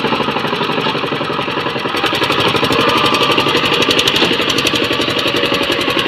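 Power tiller's single-cylinder diesel engine running with a rapid, even firing beat. About two seconds in it picks up and runs louder and harsher as it works harder through the mud, with black smoke puffing from the exhaust.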